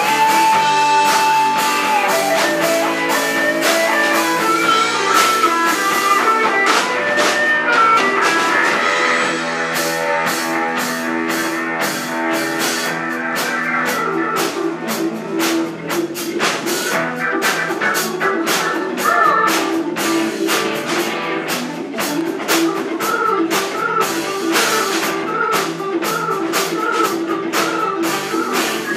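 Live rock band playing: electric guitar lead over a steady drum beat, bass and keyboards. It opens on a long held guitar note.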